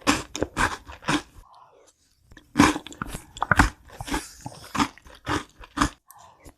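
Close-miked biting and chewing of crunchy food: a few crisp crunches, a pause of about a second, then a steady run of chewing crunches.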